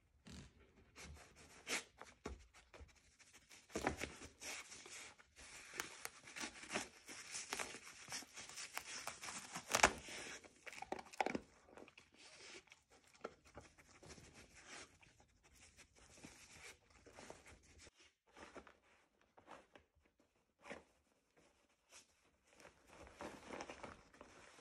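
A dog nosing through a plush fabric snuffle mat for hidden treats, the cloth flaps and toys rustling and crinkling in irregular bursts, busiest through the first half.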